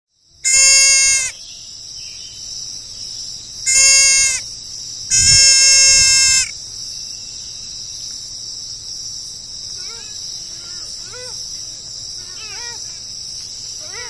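An animal bleating three times, the third call the longest, over a steady high-pitched insect drone; faint chirping bird calls come in near the end.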